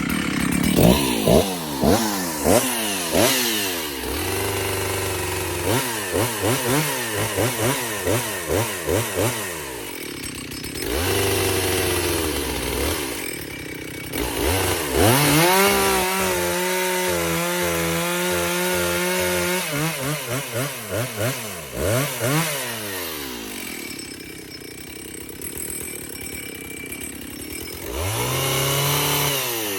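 Two-stroke chainsaw warming up, revved again and again in quick throttle blips that rise and fall back to idle. Near the middle it is held at high revs for about four seconds, then it goes back to blips, idles more quietly, and is revved once more near the end.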